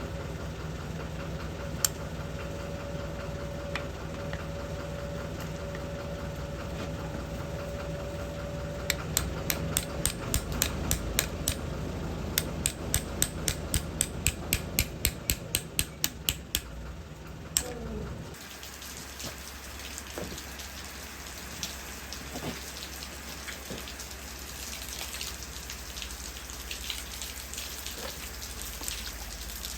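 A motor runs with a steady hum. A rapid run of clicks, about three a second, comes in about halfway through, and then the motor winds down with a falling pitch and stops. After that, water drips and trickles with scattered small ticks.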